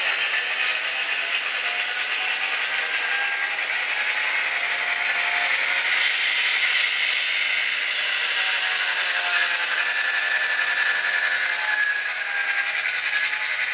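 HO-scale Athearn Genesis GP9 model diesel locomotive running along the track: a steady whir from its motor and gears, with the small clatter of its wheels on the rails.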